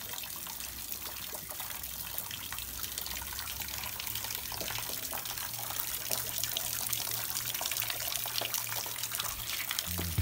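Spring water running from a metal spout into a rocky pool: a steady trickle with many small splashes.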